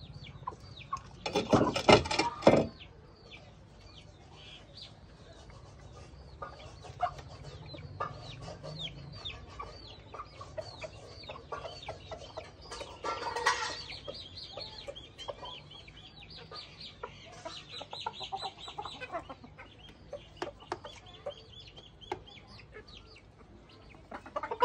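Domestic hens clucking around the shed, with many short high chirps that fall in pitch running through. There is a brief loud burst about two seconds in and a louder stretch of clucking about halfway through.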